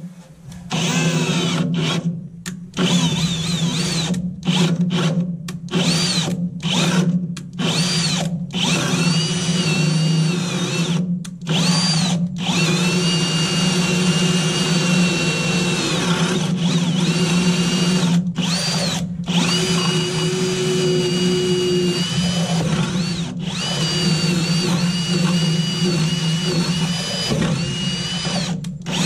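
Kobalt 24V cordless drill with a spade bit boring through a wooden truck-bed floorboard, the motor whining and its pitch dipping and rising as the bit bites. It is started and stopped many times in the first dozen seconds, then held on in longer runs.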